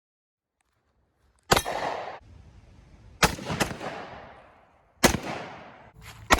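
20-gauge Mossberg 500 pump-action shotgun firing: a series of loud, sharp shots about one and a half to two seconds apart, each with a short echoing tail, one shot followed closely by a second crack.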